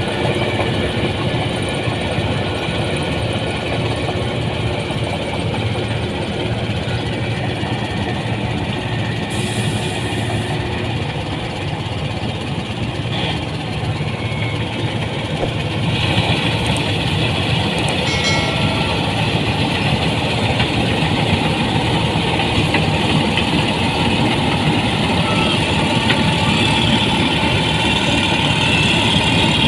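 Rice combine harvester running steadily: diesel engine and threshing machinery, growing a little louder with more high-pitched hiss about halfway through.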